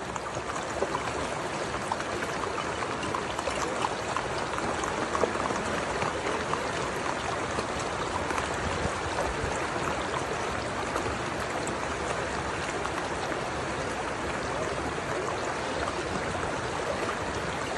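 Shallow rainwater running fast over a flat rock crossing, heard close to the water surface as a steady rushing, with occasional small splashes.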